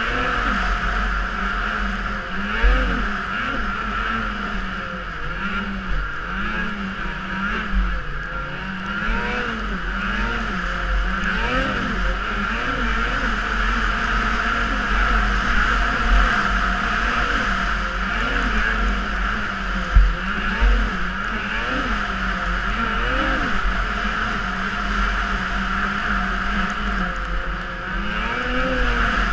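Snowmobile engine revving up and down in short swells every second or two as the throttle is worked, under a steady high whine. A few low thumps come through, one near the start and a sharper one about two-thirds of the way in.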